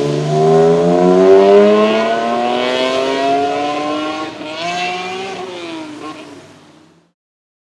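Tuned BMW 1M's twin-turbo straight-six accelerating hard, its pitch climbing steadily for about four seconds. The pitch dips briefly at a gear change and climbs again as the sound fades out, then cuts off about seven seconds in.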